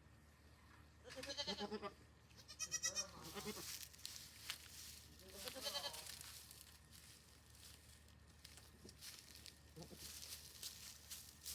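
Goats bleating: three quavering bleats, about a second in, around three seconds in and near six seconds in, the middle one the loudest and highest. Faint rustling and crackling fill the gaps.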